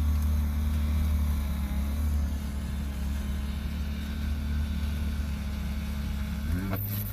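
A motor vehicle's engine idling: a steady low hum. Near the end its pitch briefly rises and falls.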